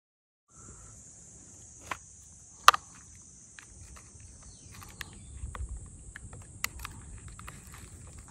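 A steady, high-pitched insect drone starts just after a brief silence and holds on, with scattered sharp clicks and knocks over a low rumble. The loudest, sharpest click comes about two and a half seconds in.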